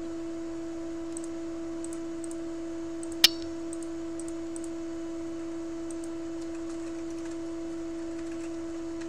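A steady, unchanging single-pitch tone with a fainter overtone above it, and one sharp click about three seconds in.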